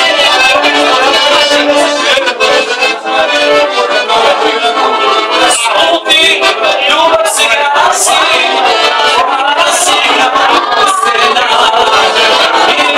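Lively accordion-led folk dance music, loud and continuous.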